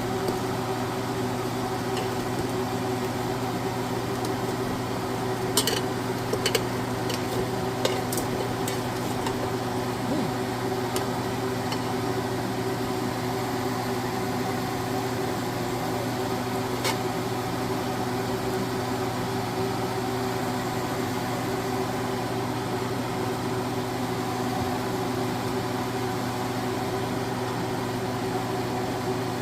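Air fryer running with a steady fan hum, with a few light clicks between about five and eight seconds in and one more near the middle.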